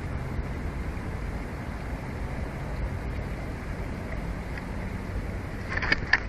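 Steady low rumble of wind buffeting the nest-cam microphone, with a few brief sharp clicks or chirps near the end.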